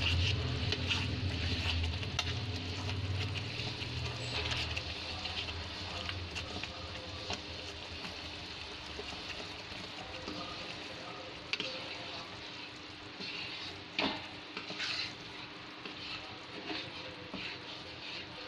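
Thick three-thread sugar syrup bubbling and sizzling in a kadhai while lumps of mawa (khoya) are stirred into it with a spoon, the spoon scraping the pan and knocking it sharply a couple of times. A low hum sits under the first few seconds.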